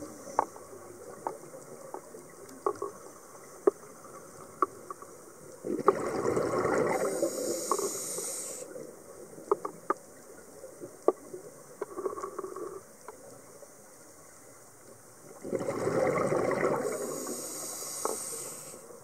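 Scuba diver's regulator heard underwater: two long rushes of exhaled bubbles about ten seconds apart, with scattered sharp clicks in between.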